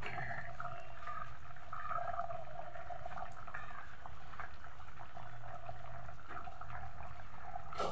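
Bata fish and potato curry (jhol) bubbling steadily as it simmers in a kadai, with a few faint taps.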